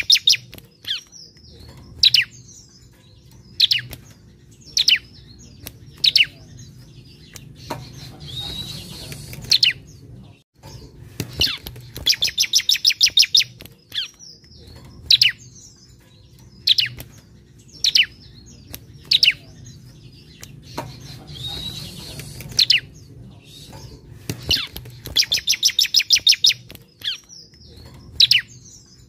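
Ciblek (bar-winged prinia) singing: loud, rapid trills of sharp high notes every few seconds, with single short sharp notes in between.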